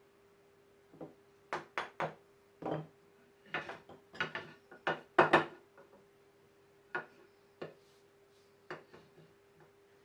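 Chisel and hands knocking against a wooden board on a workbench while a chopped mortise is cleaned out: irregular sharp wooden knocks and taps, about fifteen in all, the loudest pair about five seconds in.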